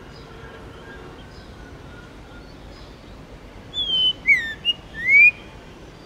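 White-rumped shama singing one short, loud phrase of clear whistles a little past halfway: a falling note, a couple of quick slurred notes, then a rising note, with thin high notes above. Before it, only faint high calls over a low hiss.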